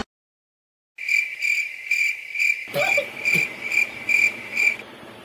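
Cricket chirping: short, evenly spaced chirps, about two or three a second, that begin after a second of dead silence and stop shortly before the end.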